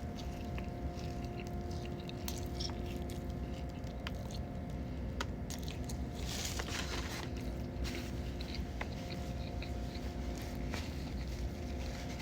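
Close-up biting and chewing of a breaded lemon pepper chicken sandwich: small clicks and crunches of the mouth working through it, with a louder noisy stretch about six and a half seconds in. A faint steady hum runs underneath.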